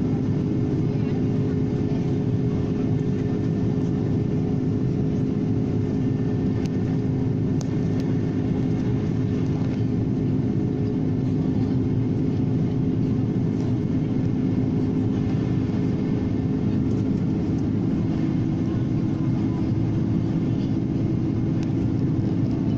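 Steady drone of a jet airliner heard from inside the cabin: a constant low rush of engine and airflow noise with a steady hum through it.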